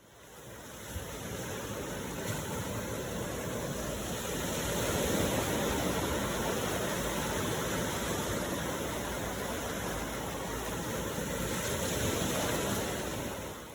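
Ocean waves washing on a shore, a steady rush that swells and eases slowly, fading in at the start and out near the end.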